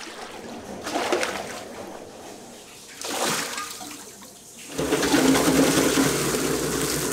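Water swishing and splashing in a stainless-steel food-processing bowl, coming in surges. About five seconds in, a louder, steady machine hum with a low drone takes over as a mixing vat runs.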